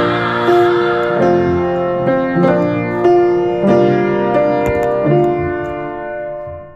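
Instrumental background music: a melody of struck or plucked notes over sustained chords, with a new note about every half second, fading out near the end.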